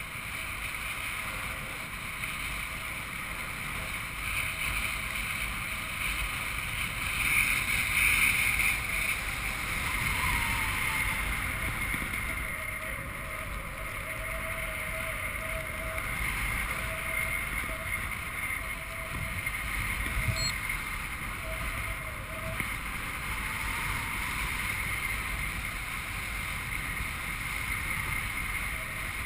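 Wind rushing across a skydiver's helmet-camera microphone during a parachute descent: a steady rush that swells briefly about seven to nine seconds in.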